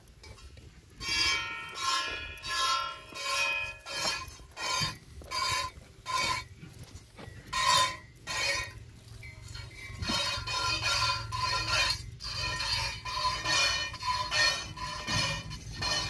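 Milk squirting by hand from a cow's teat into a stainless steel pot. Each squeeze strikes the metal with a short ringing ping, in a steady rhythm about one stroke every 0.7 s starting about a second in. From about ten seconds in the strokes come quicker and run together.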